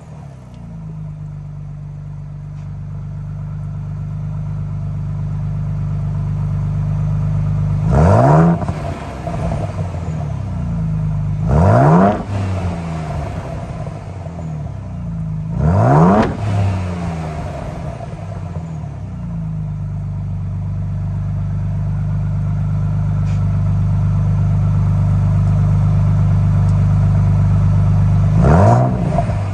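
Ford Bronco Raptor's 3.0-litre twin-turbo V6 idling at the exhaust, blipped four times: three short revs about four seconds apart in the first half and one near the end, each rising quickly and dropping straight back to idle.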